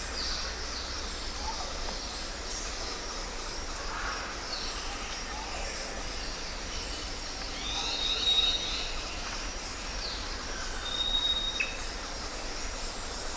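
Jungle ambience of several birds calling, with chirps and short sweeping notes, and a long whistled note on one pitch about eight seconds in and again near eleven seconds, over a steady low rumble.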